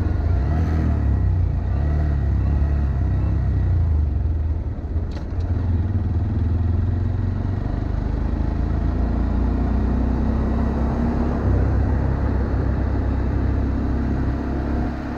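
Honda Monkey 125's single-cylinder engine running on the move at low city speed, with wind rumble on the microphone.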